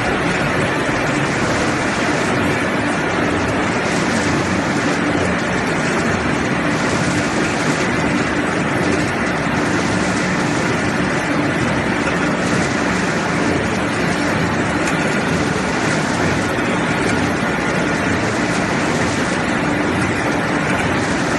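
A line of vertical ring-die pellet mills running together with their belt conveyor during pellet production. A steady, loud machine drone with a low hum and a thin high whine in it.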